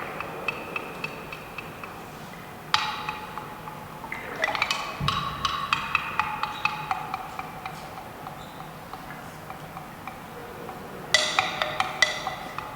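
Hand percussion played live: scattered clusters of sharp, quick strikes, each leaving a brief ringing tone, coming in about three seconds in, again around five seconds, and in a dense burst near the end.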